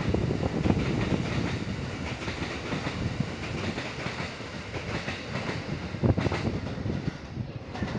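Kintetsu 80000 series Hinotori limited-express train pulling away, its wheels clacking over rail joints and points, with a heavier knock about six seconds in. The rail noise fades as the train draws away.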